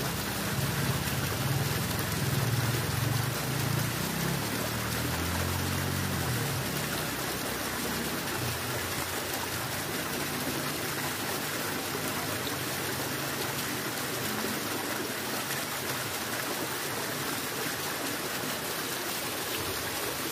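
Steady rushing noise of running water, even throughout, with a faint low hum underneath that fades out about six seconds in.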